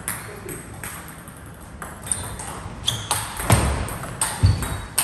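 Table tennis rally: the celluloid-type plastic ball clicks sharply off the rubber-faced bats and the table in quick succession. Near the end come a couple of heavy low thuds, players' feet landing on the wooden floor.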